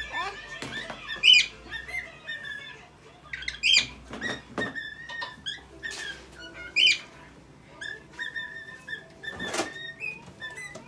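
Cockatiel whistling a tune: a string of high whistled notes, some rising and some held, with chirps between them and a few short clicks.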